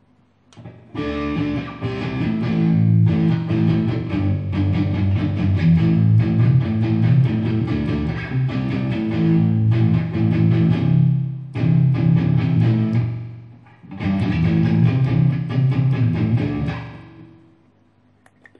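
Electric guitar improvising through a Me all sound MP80D digital delay pedal. The playing starts about a second in, has two short breaks in the second half, and dies away near the end.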